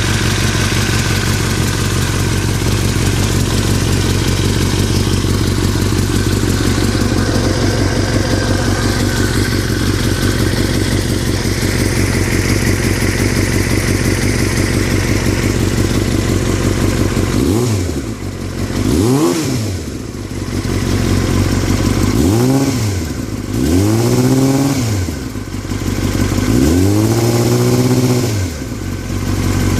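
2003 Yamaha R6's 600 cc inline-four engine idling steadily, then revved in several short throttle blips that rise and fall in pitch during the second half. It carries the rattle that started after a long trip, which the owner is unsure is normal.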